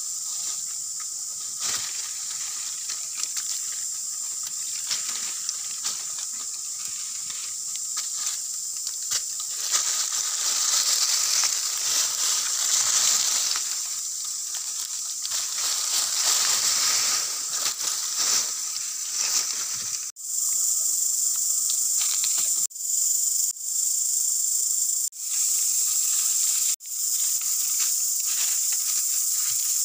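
Steady, high-pitched insect chorus, with a thicker rustling of dry leaves in the middle stretch. The sound drops out briefly five times in the last third.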